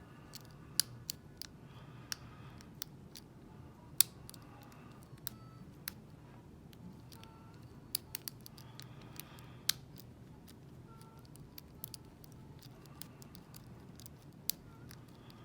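A metal lock pick clicking and scraping against the pins inside a Lockwood V7 lock cylinder as it is picked under tension. The sound is a string of irregular sharp little clicks with short scrapes between them, the pick working the spool pins while the lock sits in a false set.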